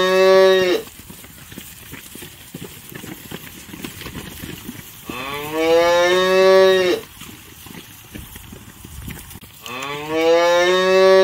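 A domestic cow mooing: one long moo ends just after the start, another comes about five seconds in, and a third near the end, each rising in pitch as it begins.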